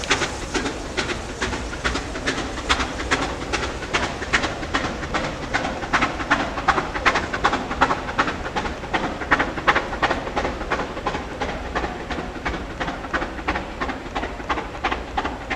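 Wagons of a narrow-gauge train rolling past, their wheels clicking over the rail joints several times a second in a steady clickety-clack over a low rumble.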